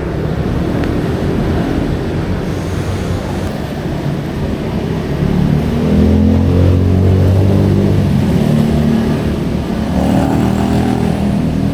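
Road traffic: motor vehicle engines running and passing, loudest a little past the middle and swelling again near the end.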